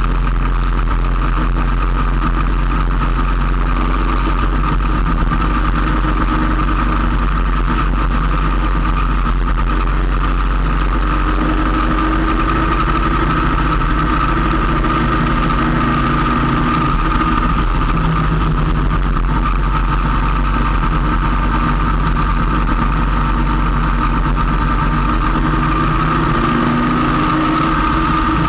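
Motorcycle riding at steady speed: a continuous engine drone mixed with wind and road noise. The engine note rises and falls slightly a few times through the bends.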